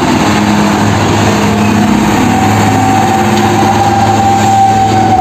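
Concrete mixer truck driving past on a road, its diesel engine running under steady road and traffic noise. A high steady whine joins about halfway through and drops in pitch at the end.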